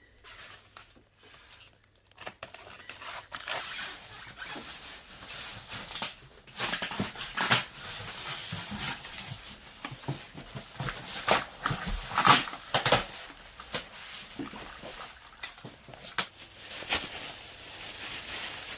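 Packaging being unwrapped: plastic and paper rustling and tearing, with scattered clicks and a few louder knocks, starting about two seconds in.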